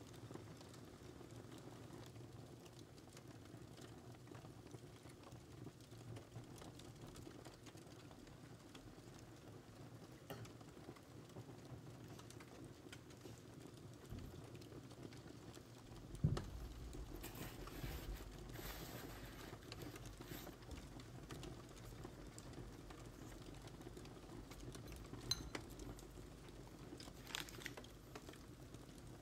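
Faint small taps and clicks of biscuits and chocolate being handled and set down on a wooden board, over a low steady hum, with one sharper knock about halfway through.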